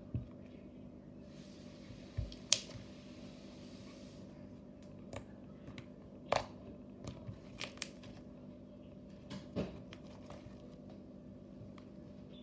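Homemade slime being squeezed and stretched by hand, giving scattered small pops and clicks at uneven intervals.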